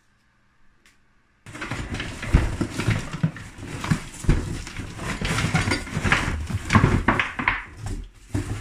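Metal CNC router parts (stepper motors, brackets, a power supply and wiring) clattering and rattling as they are tipped out of a cardboard box onto a wooden desk. The clatter starts about a second and a half in and stops just before the end.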